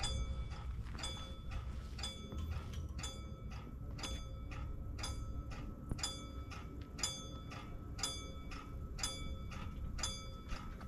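Level-crossing warning bell ringing in an even rhythm of about two strikes a second, the alarm that a train is approaching the crossing.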